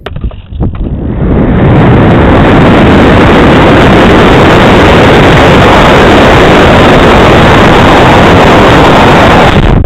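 Loud, overloaded rush of wind noise on a small onboard camera microphone as an RC plane spins down in a dive. It builds over about the first second and a half, holds steady, and cuts off abruptly near the end.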